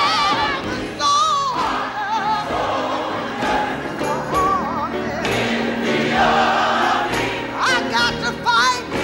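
Live gospel singing: a woman's strong contralto voice with wide vibrato and sliding runs, backed by a choir.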